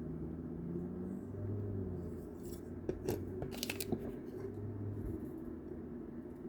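Small plastic Lego pieces being handled and pressed together, with a quick cluster of sharp clicks about three to four seconds in.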